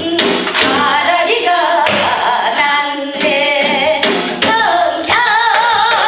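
Group of women singing a Korean folk song (minyo) together, with a strong wavering vibrato on the held notes about five seconds in, accompanied by sharp drum strokes.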